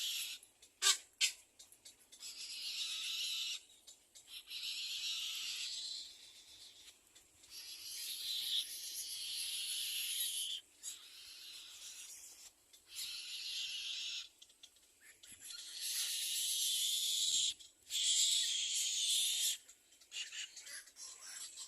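Little egret nestlings begging for food: repeated harsh, raspy calls, each lasting a second or two with short pauses between them. Two short sharp clicks come about a second in.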